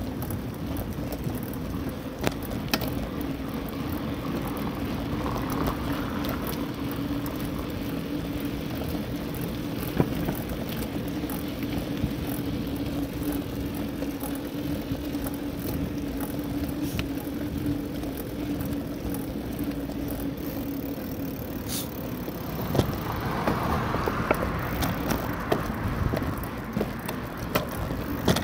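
Bicycle riding over a paved sidewalk, heard from a handlebar-mounted phone: a steady rolling rumble and hum, with frequent small rattles and knocks as the bike goes over bumps. The hum drops away about three-quarters of the way through.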